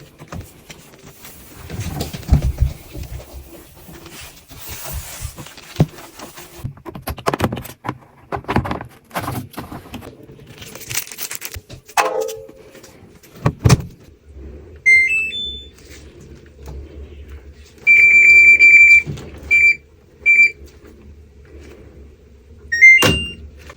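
Haier washing machine control-panel beeps: a short rising run of tones, then one long beep and two short ones, and another rising pair near the end. Before them come scattered knocks and rustles of handling, and a low steady hum starts just before the first beeps.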